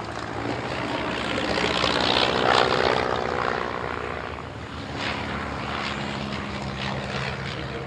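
Propeller-driven piston engine of a de Havilland Tiger Moth biplane flying past. The engine note grows louder to a peak about two and a half seconds in, then eases away.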